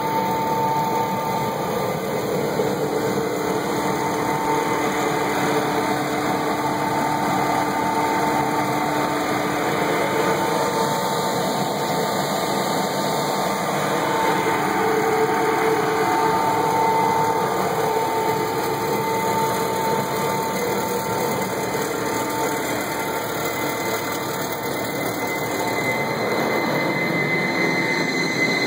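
Large industrial fan and its electric drive motor running: a steady, loud rushing whir with a constant whine on top.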